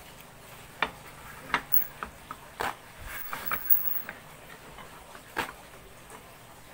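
Scattered sharp clicks and knocks, about a dozen at irregular intervals, with a quick run of them in the middle.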